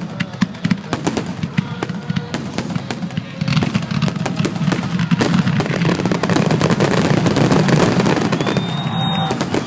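Fireworks finale: a rapid string of bangs and crackles that thickens about a third of the way in into a dense, continuous barrage, loudest shortly before the end.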